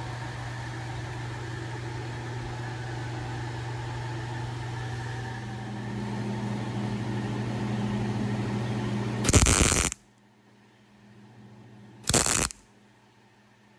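A steady hum, then two short, loud bursts of welding crackle about three seconds apart: tack welds joining a steel patch panel to a car fender.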